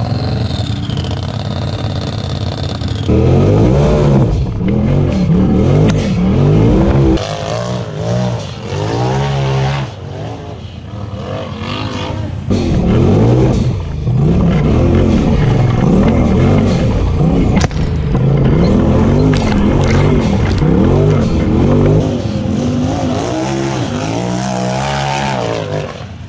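Race UTV's engine revving hard and falling off again and again as it climbs rough ground. The sound jumps abruptly between takes every few seconds.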